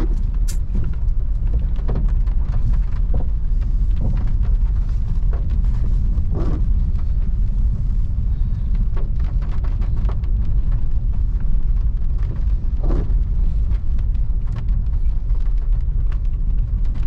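Steady low rumble of a car driving, heard from inside the cabin, with a few faint knocks.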